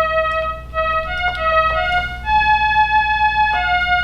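Korg electronic keyboard played one note at a time in an organ-like tone, with one note held for about a second midway. The keys are being tested after a dead key and its contact pad were repaired, and the notes sound.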